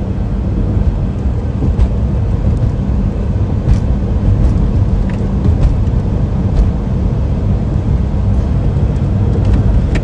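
Steady low road and engine rumble inside a moving car's cabin, with a few faint clicks.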